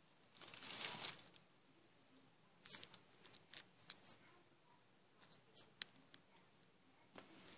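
Close handling noises: a brief rustle about half a second in, then a scattered run of small sharp clicks and taps, and more rustling near the end.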